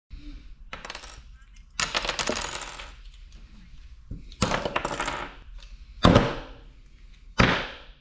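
Metal objects clattering and clinking against a hard surface: about five sharp clanks, each ringing and dying away within a second.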